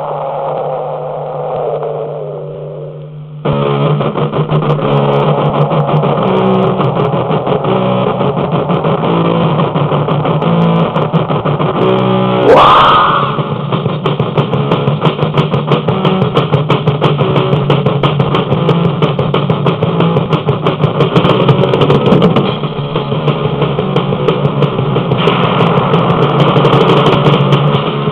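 Distorted electric guitar and drums in a muffled, dull-sounding band recording. It opens on a falling tone over a held low note, the full band crashes in about three and a half seconds in, and a quick rising guitar glide cuts through about twelve seconds in.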